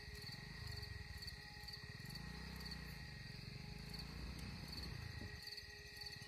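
Insects chirping in an even, repeating pulse, over a low hum that rises and then falls in pitch through the middle.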